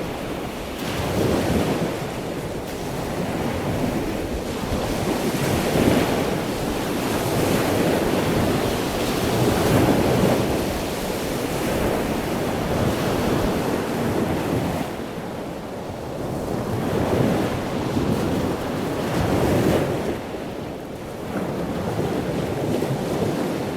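Ocean waves washing onto a shore, the surf swelling and easing every few seconds with a steady rush of wind.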